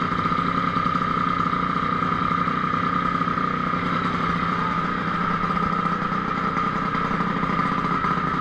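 DRR race quad engine idling steadily after a fresh start, following a stator-side crank seal replacement and ignition air gap setting meant to cure its hard starting and rough idle.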